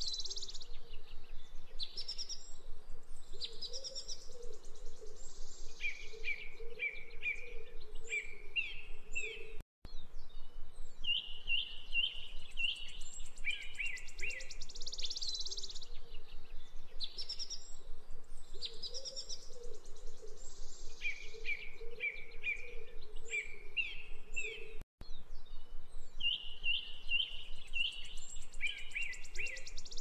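Wild birds chirping in repeated phrases of quick notes, with a higher buzzy trill and a lower wavering call underneath. The same stretch of birdsong repeats about every fifteen seconds, cutting out for an instant twice.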